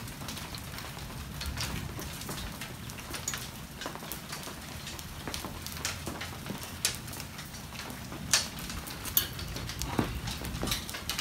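Thunderstorm precipitation striking hard patio surfaces: scattered, irregular sharp taps of drops landing, over a steady low rumble. The sharpest hits come about eight and ten seconds in.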